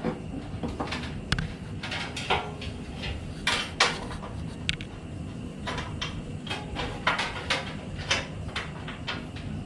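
Irregular clicks and knocks of metal parts being handled and fitted together while a flexible gas hose and burner are positioned on a steam boiler.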